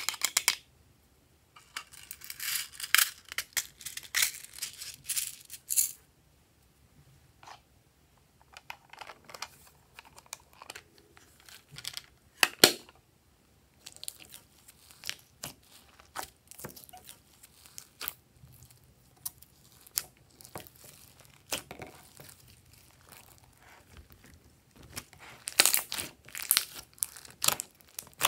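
Glossy slime being worked by hand, giving sticky crackling, popping and tearing sounds in irregular spells. The crackling is thickest from about two to six seconds in and again near the end, with a few sharp single pops in between.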